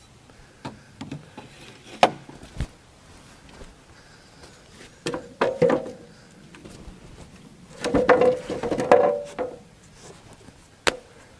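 Scattered knocks and chain clinks as a heavy black walnut round, hanging in chains from a small trailer crane, is lowered and shifted onto the sawmill bed. There are two busier stretches of knocking with a short creak, around the middle and again toward the end.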